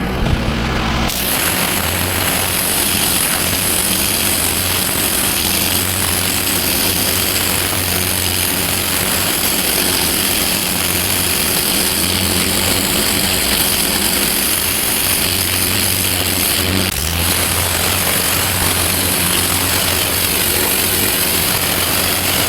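Petrol pressure washer running steadily while its jet sprays water onto block paving, a constant hiss over a low engine hum, briefly interrupted about two-thirds of the way through.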